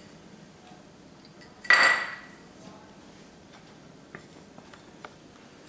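A ceramic dinner plate clinks once, sharply, about two seconds in, with a short ringing tone. A few faint small clicks follow as the plate is handled.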